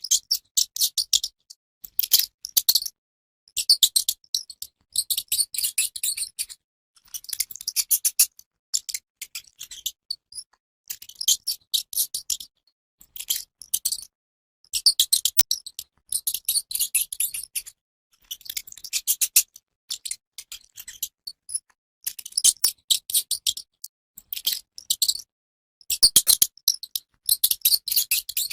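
Mouse scratching: rapid high-pitched scratchy clicks in short bursts of a second or two, separated by brief silences.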